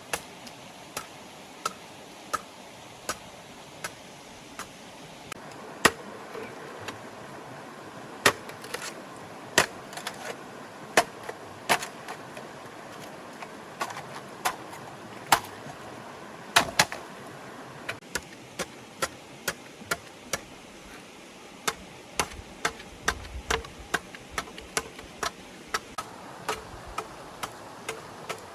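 A long series of sharp knocks, spaced about a second apart at first and then coming faster, near two a second, over the steady rush of running stream water.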